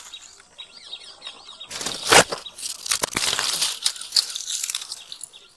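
Dry twigs and leaves rustling and crackling as they are handled, with a loud crunch about two seconds in.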